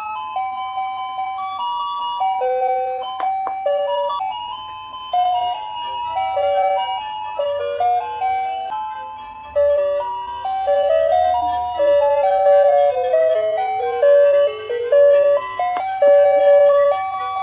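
A tinny electronic melody of single notes stepping up and down, like a music-box chime tune.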